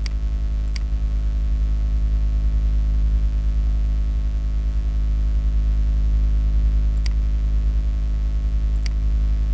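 Steady low electrical hum with a stack of overtones, with four sharp computer mouse clicks: one at the start, one just under a second in, and two near the end, about two seconds apart.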